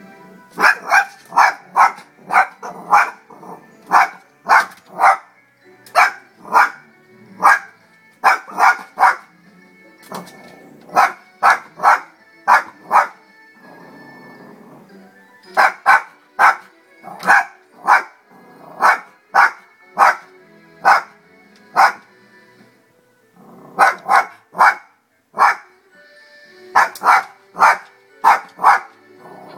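Small dog barking at animals on a television advert, in quick runs of several sharp barks, about two to three a second, broken by short pauses. Music from the advert plays underneath.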